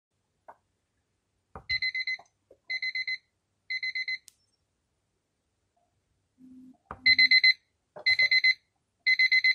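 Duffy character alarm clock sounding its electronic beep alarm: groups of four rapid high beeps, about one group a second. The first three groups are alarm tone 3 at its soft setting. After a pause and a button click come three louder groups of alarm tone 4 at its loud setting.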